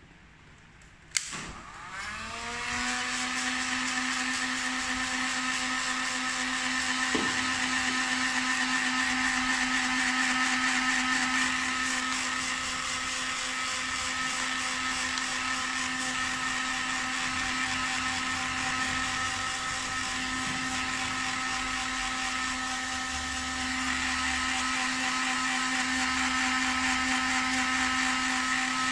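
Handheld heat gun switched on with a click about a second in. Its fan motor spins up within about a second, then runs steadily, blowing hot air with a constant whine and hiss.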